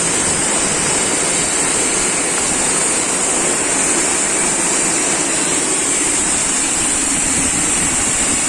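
Heavy rain pouring steadily, with a constant high hiss above the downpour.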